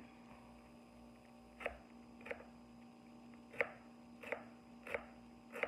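Chef's knife cutting through a small head of green cabbage and knocking on a white plastic cutting board: six short knocks at uneven intervals, starting about a second and a half in.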